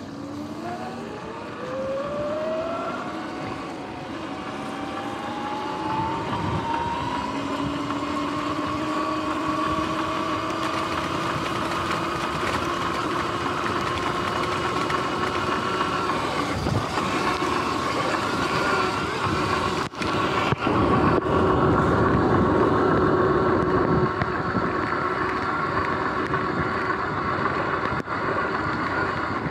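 Sur-Ron X electric dirt bike's motor whining, rising steadily in pitch as the bike accelerates over the first several seconds, then holding an even pitch at speed. A rushing of tyres and wind runs underneath.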